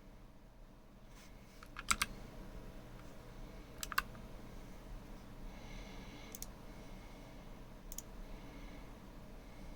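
Clicky Kailh Pale Blue mechanical keyswitches on a GMMK TKL keyboard pressed one at a time, giving a few sharp separate clicks. The loudest are a quick double click about two seconds in and another about four seconds in, with single clicks later.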